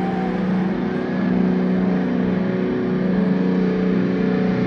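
Distorted electric guitar holding a low droning note through a concert PA, in long swells about two seconds apart, as the next song is about to begin.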